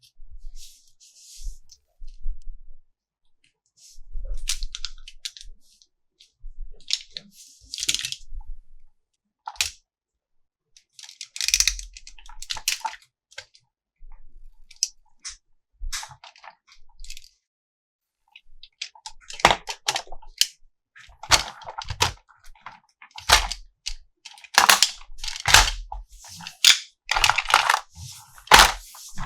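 Plastic toy parts and packaging being handled: crinkling, clicks and knocks in irregular bursts with short pauses, busier and louder in the second half.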